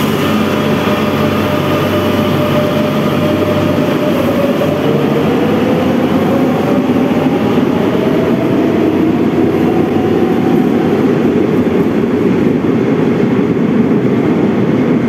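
Madrid Metro Serie 7000 electric train pulling out and gathering speed, its traction motors giving a whine that slowly rises in pitch over the steady rumble of wheels on rail.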